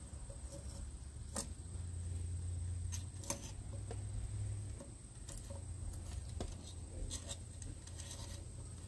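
Scattered light clicks and taps of metal parts as a clamp-on hand-crank chainsaw sharpener is fitted and adjusted on a pole saw's bar and chain, over a steady low rumble.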